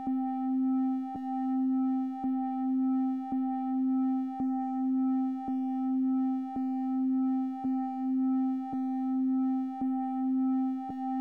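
Synthesized electronic tone in a low-middle pitch with a few faint overtones, swelling and dipping about once a second, with a soft click at each pulse: a 1 Hz pulsing tone.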